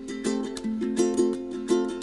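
Music: a solo ukulele strumming chords in a steady rhythm, an instrumental song intro without singing.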